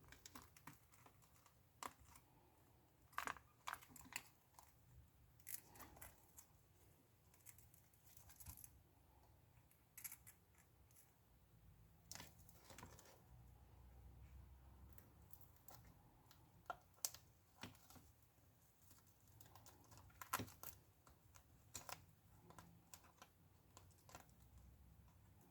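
Faint, scattered clicks and scratching of a prying tool working a cracked iPad digitizer glass loose from its adhesive.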